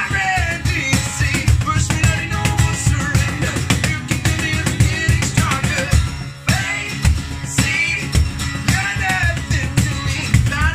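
Live acoustic duo: a strummed acoustic guitar and a man singing, with a cajon slapped by hand keeping the beat. The music drops briefly about six and a half seconds in, then carries on.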